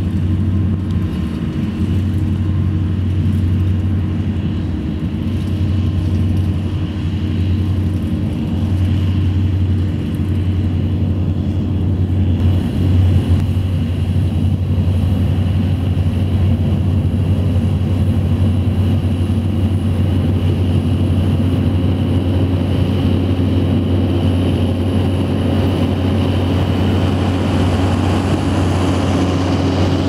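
A John Deere tractor and its McHale Fusion round baler-wrapper running steadily while baling silage: a continuous low engine drone with a faint steady mechanical whine above it.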